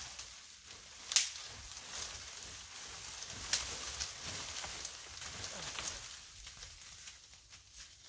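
Dry leaves and twigs rustling and crackling, with a sharp snap about a second in and a few lighter cracks after.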